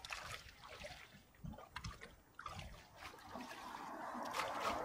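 Small waves lapping and trickling against a concrete shore, with a few light knocks and clicks scattered through.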